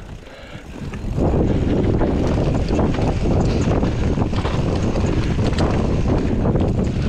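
Orange P7 steel hardtail mountain bike descending rough dirt singletrack: a steady clatter of tyres on dirt and the frame and drivetrain rattling over bumps, with wind noise on the microphone. It gets much louder suddenly about a second in, as the bike drops into the trail.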